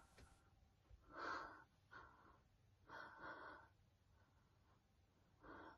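A woman's quiet breaths, three of them: one about a second in, one around three seconds in, and one near the end.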